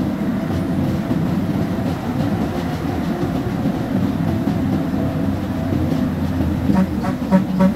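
Truck engine running and the cab rattling while driving, heard from inside the cab. The engine note grows louder and more pitched near the end.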